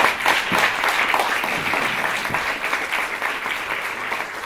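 Audience applauding: a dense run of hand claps that slowly dies down.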